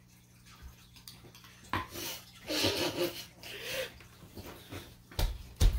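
A metal spoon knocking against a stone mortar, then breathy, stifled laughter, and a few dull thumps near the end.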